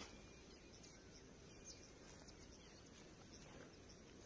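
Near silence: faint open-air background with a few faint, short high chirps.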